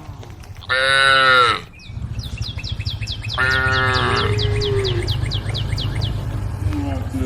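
Cattle mooing: a short loud call about a second in, then a longer call from about three and a half seconds that drops into a lower held note. Behind them runs a rapid series of high chirps, about five a second.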